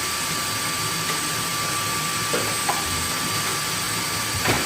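Vacuum cleaner motor running steadily, a constant rushing noise with a thin high whine, with a couple of light knocks near the end.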